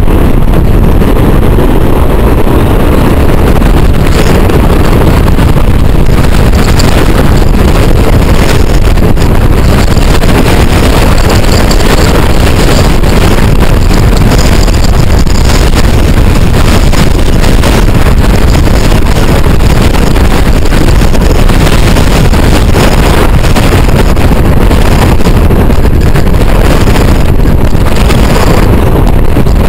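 Steady, loud roar of wind buffeting the microphone together with road noise from a vehicle driving at speed, unbroken throughout.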